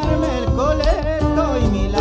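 Live Argentine folk band playing an instrumental passage of a chacarera: a violin melody with vibrato over guitar and a steady beat on the bombo legüero.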